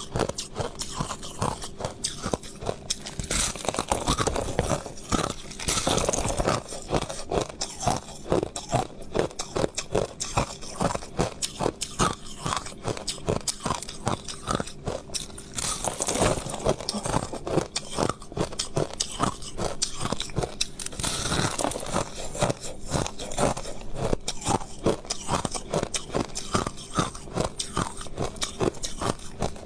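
Close-miked biting and chewing of crushed ice: a dense, continuous run of sharp crunches and cracks as the ice is bitten and ground between the teeth, with louder flurries of crunching every few seconds.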